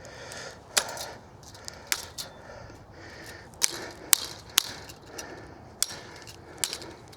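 Sharp, irregular metallic clicks and snaps as crimped metal clips are worked off no-climb fence wire with channel-lock pliers. There are about eight clicks, spaced unevenly.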